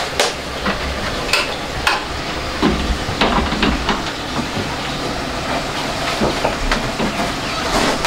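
Steady rushing hiss of a 17,000 BTU Mabru marine air conditioner running and pushing air through the cabin ducting and vents, with scattered knocks and clicks of handling and a louder knock near the end.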